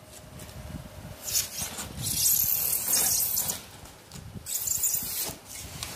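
A hand cutter drawn along a pre-insulated foam duct panel in two long scraping strokes, the first running about two seconds and the second about one second. The strokes cut grooves so the panel can be bent into an elbow.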